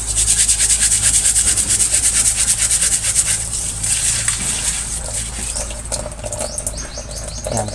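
Steel wool scrubbing a gas-range burner cap in rapid back-and-forth strokes under running tap water, rubbing off built-up carbon. The scrubbing is loudest for about the first five seconds, then eases off.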